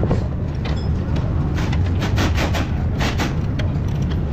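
A long wrench clicking rapidly about eight times as the upper control arm bolt is tightened to torque, over a steady low rumble.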